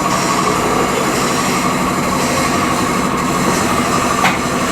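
Steady mechanical drone with a constant high-pitched whine, and one short click near the end.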